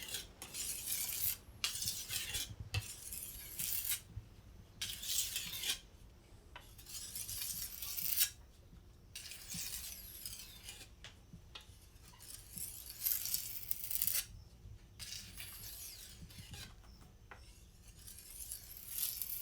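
A knife being sharpened: repeated scraping strokes of the blade, each about a second long, with short pauses between them.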